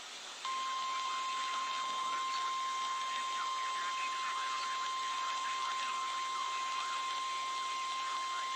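NOAA Weather Radio's 1050 Hz warning alarm tone: one steady high tone that starts about half a second in and holds, over radio hiss. It signals that a warning broadcast follows, here a severe thunderstorm warning.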